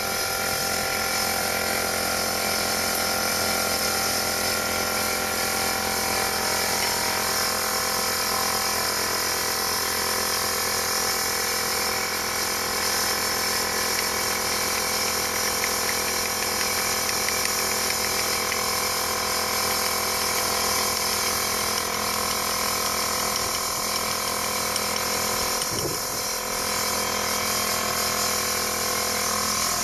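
Pressure washer running steadily, a pump motor's held tones under the hiss of spraying water, cleaning stained limestone.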